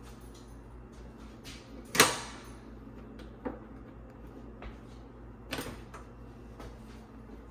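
A few sharp clicks and knocks over a steady low hum. The loudest, about two seconds in, rings on briefly. Near the end come clicks from the control knob of a Frigidaire electric coil range as it is turned.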